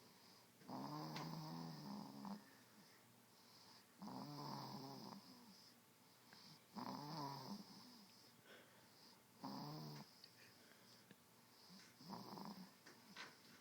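Slow, soft snoring from someone asleep: five snores, one about every two and a half seconds, each a wavering, rattly breath.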